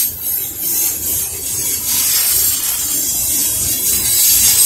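Coal train's hopper cars rolling slowly past on the rails: a steady high hiss of wheels on track over a low rumble.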